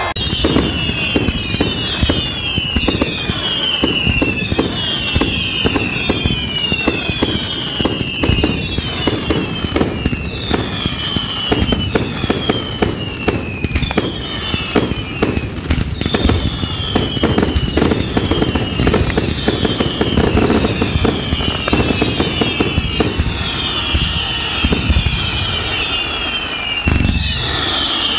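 Fireworks display: a dense, continuous barrage of bangs and crackles, over which whistles keep sounding one after another, each falling in pitch.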